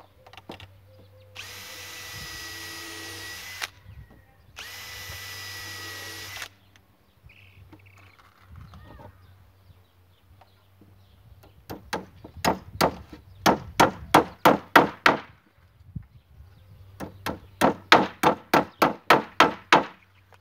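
A power drill runs twice, each run about two seconds with a steady whine. Later come two long series of hammer blows, evenly paced at about three strikes a second.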